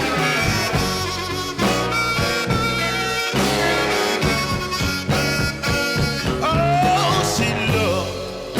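Blues and rhythm-and-blues record playing an instrumental passage, a horn section with harmonica over a steady band beat.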